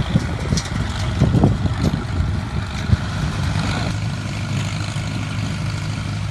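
Farmall 350 tractor engine running steadily with an IH 47 square baler, with a few irregular knocks in the first three seconds and smoother running after.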